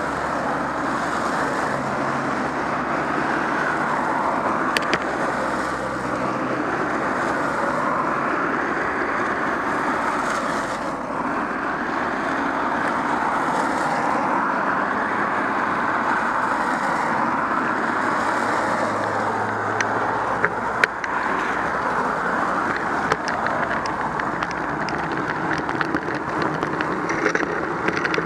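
Road traffic on a wet road: a steady hiss of tyres and engines from cars and vans close by, with a low engine hum coming and going and a few short clicks.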